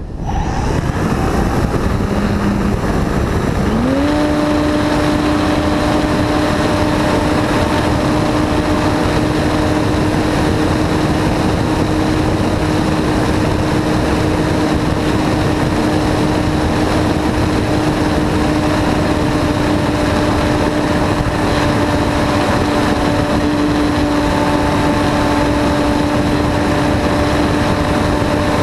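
Radio-control Extra 260 aerobatic plane's motor and propeller heard from a camera mounted under it. The note climbs about three to four seconds in, then holds steady at high power, over a constant rush of air on the microphone.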